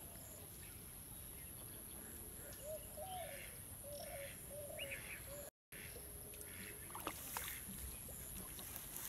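Quiet pondside ambience in which a bird calls several times in short arched notes. About seven seconds in there is a brief cluster of sharp rustles and splashes as the fishing line is jerked from the water.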